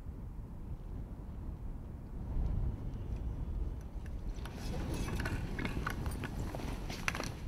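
Low wind rumble on the microphone, then from about four and a half seconds in, rustling and a run of sharp clicks as a rifle in its leather gun slip is handled.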